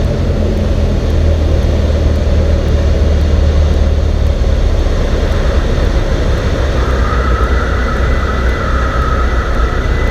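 Cessna 172N's four-cylinder Lycoming engine and propeller droning steadily, heard from inside the cabin. A steady high whistle joins about seven seconds in.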